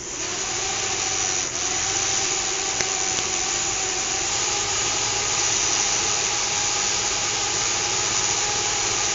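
Small fischertechnik electric motor starting up and running steadily: an even whirr with a steady whine.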